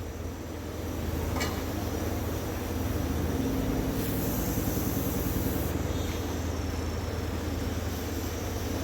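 Steady low hum with background noise, and a faint click about a second and a half in.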